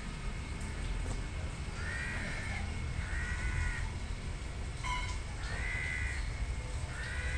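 A crow cawing four times, each caw harsh and about a second or less long, the last one near the end, over a low steady rumble.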